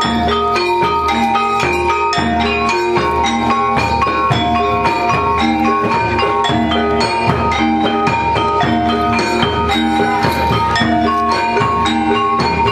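Gamelan-style kuda kepang accompaniment: struck metallophones and gongs playing a repeating melody over a steady drum beat.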